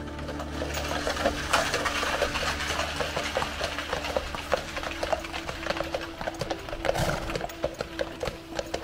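Hooves of a pair of heavy draught horses clip-clopping on a hard road as they pull a passenger wagonette, a quick run of sharp knocks over the steady rolling noise of its wheels.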